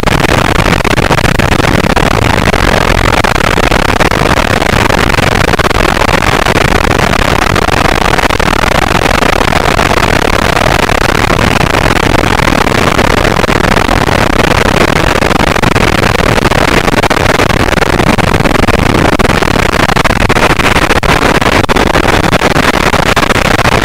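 Freefall wind rushing over a body-worn camera's microphone: a loud, steady, unbroken noise.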